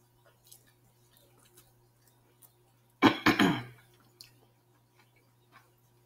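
Soft chewing and small mouth clicks from someone eating corn on the cob close to the microphone. About three seconds in comes a short, loud two-part vocal sound from the eater.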